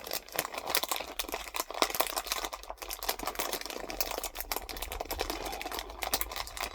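Plastic sweet packet crinkling and rustling as it is handled and rummaged in, a dense, continuous run of crackles that thins out near the end.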